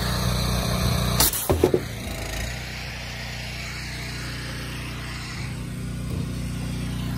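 Pressure washer's gas engine running steadily, with a sharp knock and a few short bumps of handling noise a little over a second in.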